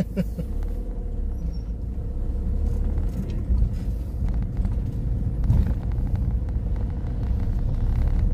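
Road and engine noise inside the cabin of a moving camper van: a steady low rumble with a faint steady hum above it.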